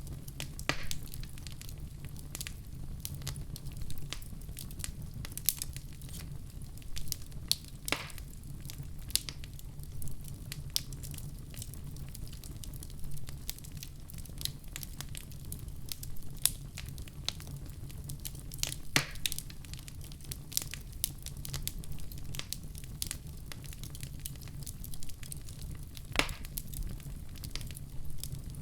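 Wood fire crackling in a fireplace: a steady low rumble of burning with frequent small sharp pops and a few louder snaps scattered through.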